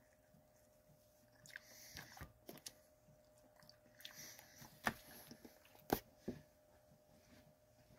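Faint chewing of a bagel dog, soft wet mouth smacks and clicks while the bread and sausage are worked, with a couple of sharper clicks a little past the middle.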